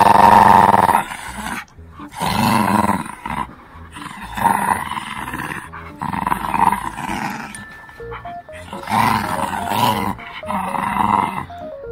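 Shih Tzu puppy growling in repeated bursts as it pulls on a rope tug toy: a play growl during tug-of-war, not real aggression. Background music with a simple note-by-note melody comes in past the middle.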